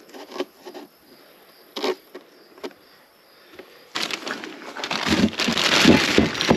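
A few soft knocks and taps as parts are handled on cardboard, then from about four seconds in, loud crinkling of a plastic bag being handled.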